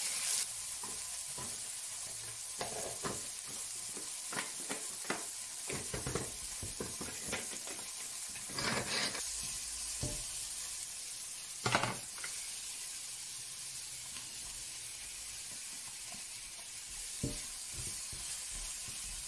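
Diced aubergine, onion and garlic frying in oil in a non-stick pan, sizzling steadily, with a spatula scraping and tapping against the pan now and then; a couple of louder scrapes come about nine and twelve seconds in.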